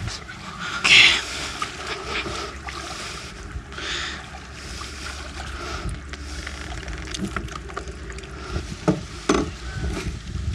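Steady wind rumble on the microphone, with a few short scrapes and knocks as a small plastic dinghy is pushed off a muddy bank into the water.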